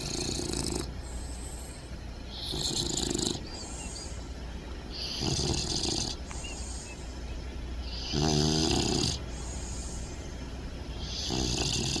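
A bulldog puppy snoring in deep sleep, about one snore every three seconds, five in all. The fourth snore is the loudest and has a buzzing, rattly tone.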